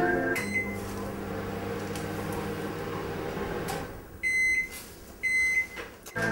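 Microwave oven running with a steady hum that stops about four seconds in, then two short high beeps about a second apart signalling the end of the heating cycle.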